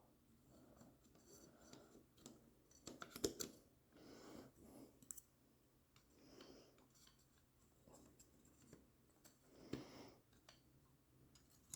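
Near silence broken by a few faint clicks and scrapes of small quadcopter frame parts and hardware being handled and fitted, loudest about three seconds in and again near ten seconds.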